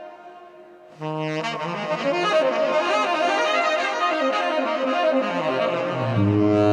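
Saxophone and piano playing together. A held note fades over the first second, then a dense run of quickly changing notes starts, and low notes join near the end.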